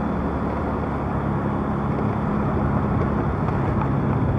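Motorcycle engine running steadily as it is ridden slowly along a rough, narrow road. The engine note drops a little about three seconds in.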